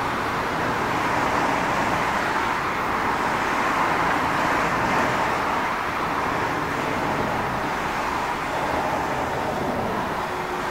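Steady roar of road traffic, with an electric train approaching along the track in the distance.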